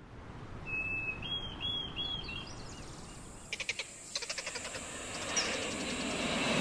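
Outdoor wildlife ambience fading in: a bird's short whistled notes, then two short runs of rapid clicking calls over a low rumble and hiss that grows louder toward the end.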